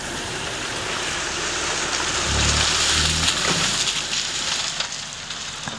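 Skoda Octavia Scout driving slowly over a wet, muddy dirt track, its tyres hissing and splashing through water and mud. The noise grows to a peak about halfway through as the car comes close, then eases off.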